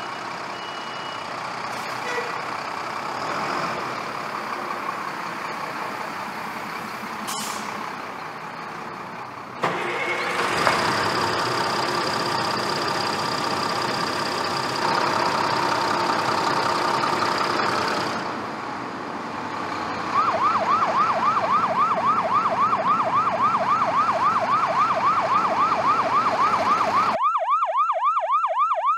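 Toy emergency-vehicle sound effects: an engine-like running noise, then about two-thirds of the way in an electronic siren wailing fast up and down, about three sweeps a second.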